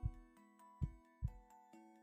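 Human heartbeat: deep thuds in lub-dub pairs, one at the start and a double thud about a second in, under a soft tinkling mallet-instrument melody.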